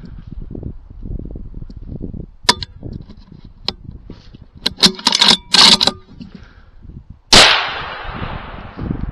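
A hunting rifle shot about seven seconds in, its report rolling away in a long fading echo. Several shorter, sharp rustling or knocking noises come before it.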